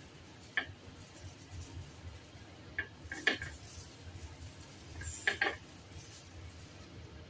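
Dishes clinking and knocking on a kitchen counter: about five short, sharp clinks, one early, two a little before the middle and two close together past the middle.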